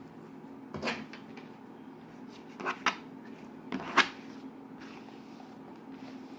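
Slime being squished and poked by hand, giving three short, sticky clicks and pops, the last the loudest, over a steady low hum.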